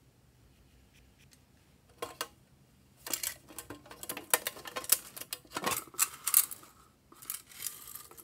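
A hard plastic case being handled and tipped: one sharp click about two seconds in, then a dense run of clicks and rattles as small plastic pieces inside it clatter.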